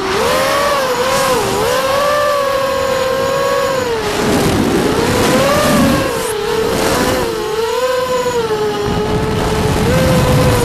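Motors of a Vortex FPV racing quadcopter whining, heard from the onboard camera, their pitch sliding up and down with the throttle. Gusts of wind and prop-wash rush in several times.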